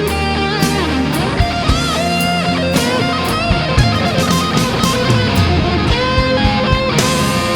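Rock music with electric guitar: sustained, bending lead notes over drums and bass.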